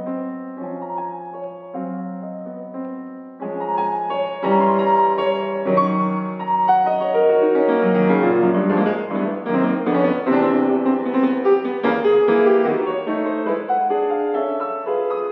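Solo Yamaha grand piano being played: a quiet figure of two alternating chords, which about three seconds in gives way to a louder, busier passage of many notes that is fullest in the middle and eases a little near the end.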